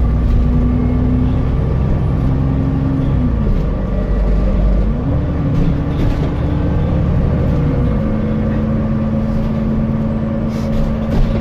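Alexander Dennis Enviro400MMC double-decker bus engine running with a steady hum that dips in pitch about three seconds in, rises about five seconds in, and falls back just before eight seconds.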